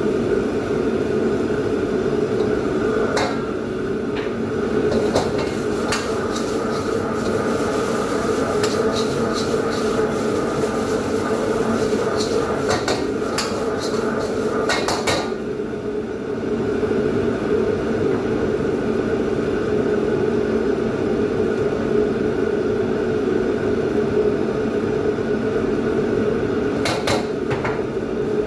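Steady rushing of a commercial wok station's gas burner and overhead extraction hood, with metal utensils clanking and scraping against a wok as noodles are stir-fried. The clanks come in bunches through the first half and again near the end.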